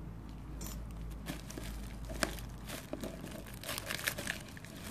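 Clear plastic wrap crinkling and crackling as gloved hands handle a plastic-sealed cardboard box, in irregular small crackles with a few sharper snaps about two seconds in and near the end.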